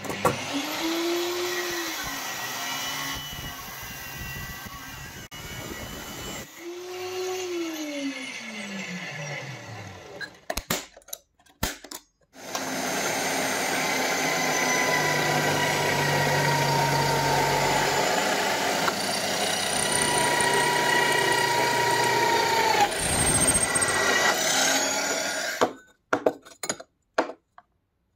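Drill press drilling holes in a thin steel plate. The motor twice spins up and winds down, its pitch rising then falling, and then runs steadily for about thirteen seconds while the bit cuts through the metal, with a slowly sinking whine.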